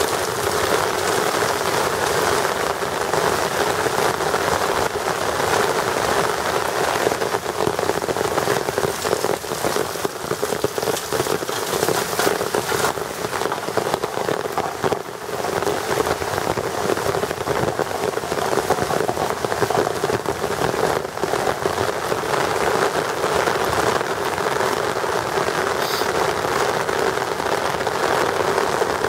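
Steady rain falling on wet pavement and splashing into standing water along the curb.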